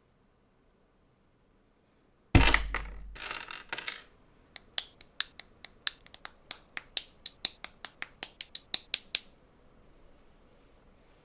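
LEGO plastic pieces: a sudden loud clatter, as of a batch of pieces tipped out, rattling for about a second and a half. Then a quick run of sharp plastic clicks, about five a second, for some five seconds.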